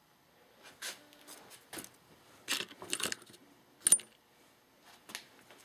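Small metal engine parts, such as bolts and valve pieces, clinking and rattling in a plastic parts tray as they are handled, with one sharp metallic clink about four seconds in.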